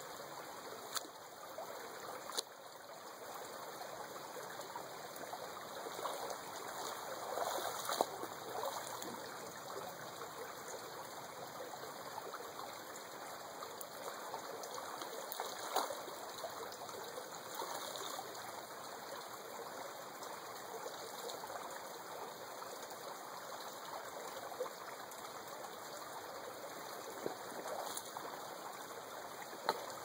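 Shallow rocky creek flowing and trickling steadily, with a few short splashes as hands dip and scoop in the water.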